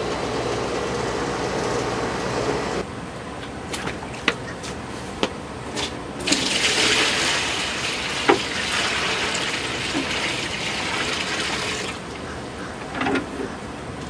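Garden hose running water into a plastic bucket for the first few seconds. About six seconds in, water is poured from the bucket into a galvanized metal tub, a louder, brighter splashing for about six seconds, with a few knocks and clicks in between.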